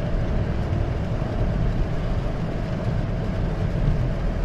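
Steady road and engine noise inside a moving Toyota Corolla's cabin: a deep, even rumble with a lighter hiss above it.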